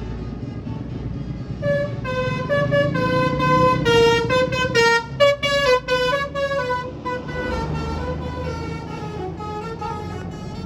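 Bus telolet horn playing a quick melody of changing horn notes over the low rumble of the bus. The tune starts about two seconds in and trails off near the end.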